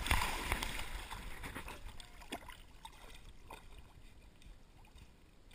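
River water splashing right at a camera held at the surface. It is loudest at the start and dies down within a couple of seconds to soft lapping and small drips.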